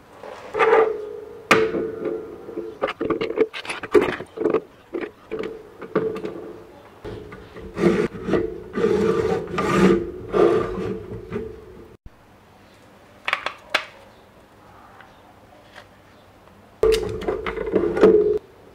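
Handling noise from 3D-printed plastic parts being fitted together and slid into place: irregular clicks, knocks and rubbing of plastic, busy through the first twelve seconds, then a few isolated clicks and another short burst of rubbing near the end.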